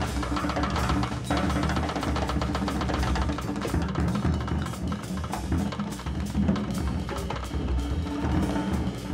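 Large jazz ensemble of winds, brass, strings and percussion playing together, the drum kit busy with many quick strikes over sustained low notes.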